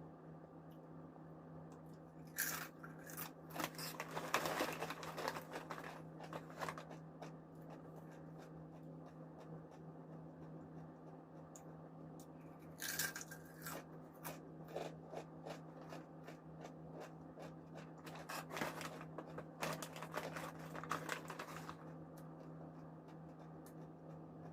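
Crunchy spicy balado chips being bitten and chewed close to the microphone, in three spells of loud crunching with small crackles between them. A steady low hum runs underneath.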